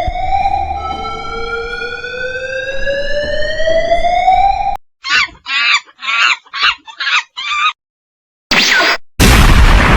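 A string of separate sound-effect clips: a slowly rising, siren-like tone for about five seconds, then six short bird-like calls in quick succession, then a brief burst and a loud noisy blast near the end.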